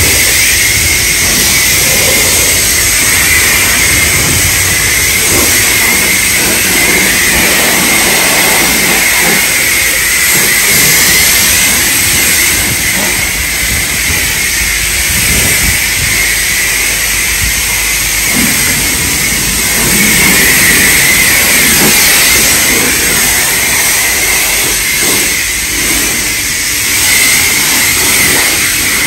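Self-serve car wash high-pressure wand spraying water onto a car's body: a loud, steady hiss of spray that holds without a break.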